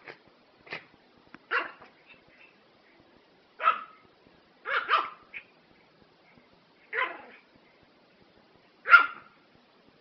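Prague ratter, a small toy dog, barking in short single barks, about six spaced a second or two apart, the loudest near the end.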